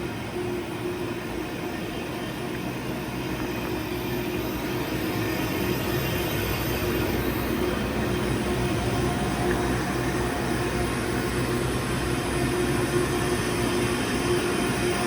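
Makino Duo 43 wire EDM running under power: a steady machine hum with a held mid-pitched tone, growing slightly louder through the stretch.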